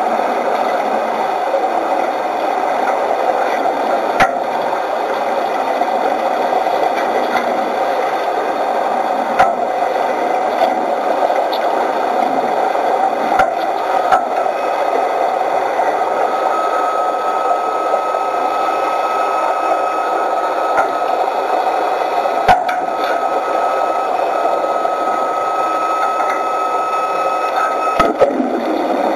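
Steady underwater noise from a diving job at a ship's hull, with scattered sharp clicks. A faint steady high whine comes in about halfway and stops near the end.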